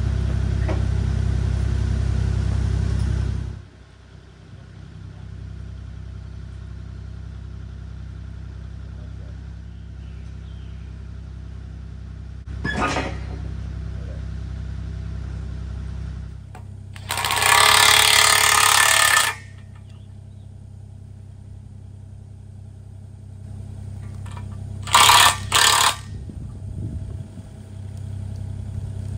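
Mini excavator's engine running steadily, loud for the first few seconds and then lower as a steady drone. Several loud bursts of noise come over it: a short one about 13 seconds in, one about two seconds long a little past the middle, and two brief ones near the end.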